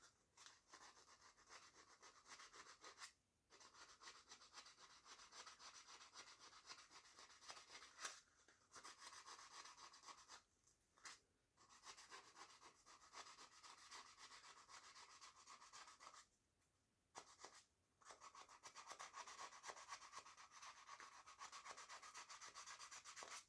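Fine 320-grit sandpaper rubbing faintly back and forth on the copper commutator of a die grinder's armature, cleaning up where the brushes ran, with a few brief pauses.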